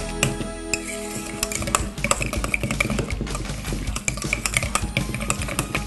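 Wire potato masher mashing guacamole in a stainless steel bowl, with repeated clinks and scrapes of metal against the bowl. Background music plays, mostly in the first two seconds.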